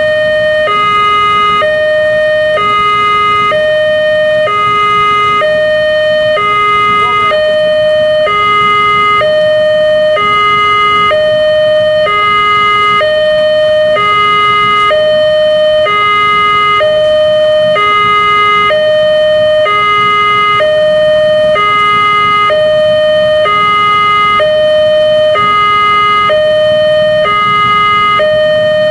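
Railway level-crossing warning alarm sounding continuously as an electronic two-tone 'ding-dong', alternating a higher and a lower tone with about one pair every 1.2 s. This signals that a train is approaching and the crossing is closed.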